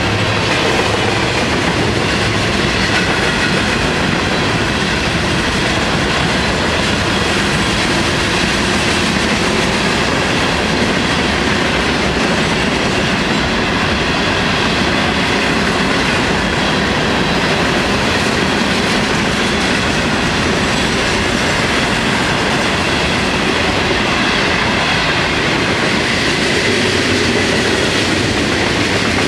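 Freight cars of a long Florida East Coast freight train rolling past close by: steel wheels running on the rails in a steady, loud stream of rumble and clatter.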